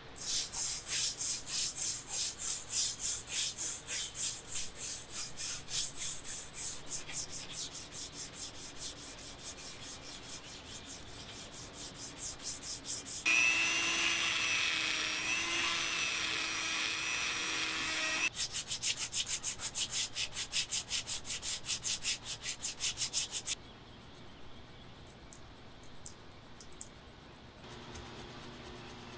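Hand sanding of a machete with sandpaper: quick, even back-and-forth rubbing strokes, about three to four a second. A little under halfway through, a steady pitched whine takes over for about five seconds; then the sanding strokes return and stop about five seconds before the end.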